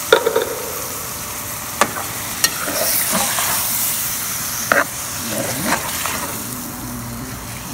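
Candied yams sizzling in hot bacon grease in an aluminum saucepan as a metal spoon stirs them, with a few sharp clicks of the spoon against the pan.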